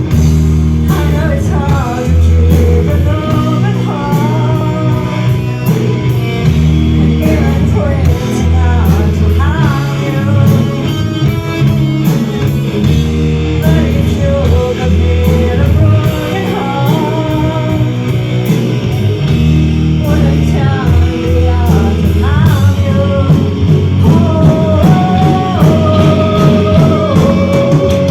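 Rock music played loudly throughout, with electric guitar and bass under a melody line that bends in pitch.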